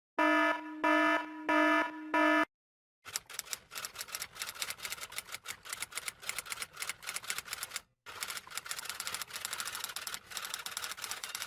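A pitched electronic beep pulsing about four times, then, after a brief gap, a long run of rapid, irregular key clicks like typing, with a short break about eight seconds in.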